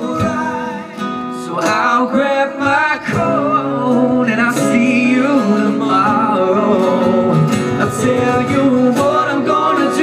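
Live pop song: a man singing over a strummed acoustic guitar with band accompaniment.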